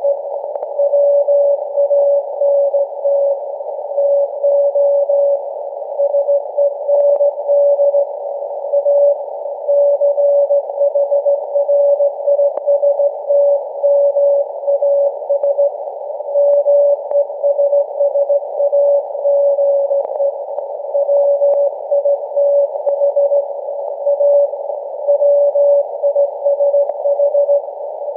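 Morse code from the SAQ Grimeton Alexanderson alternator's very-low-frequency transmission, received on a software-defined radio and heard as a steady mid-pitched beep keyed on and off. It sits over a band of receiver hiss narrowed by the receiver's filter.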